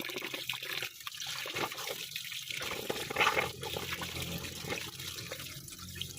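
Heavy rain falling steadily, a dense splashing hiss of water.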